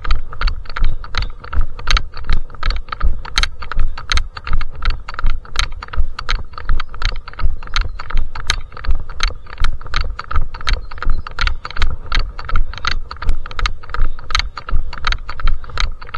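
A trail runner's footsteps, a regular thump and click about three times a second, with gear rattling on each stride.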